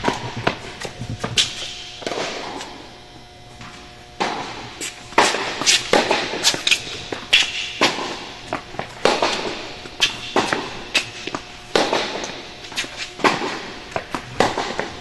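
Tennis rally on an indoor hard court: sharp pops of the ball off the racket strings and off the court, roughly one or two a second, busiest in the second half.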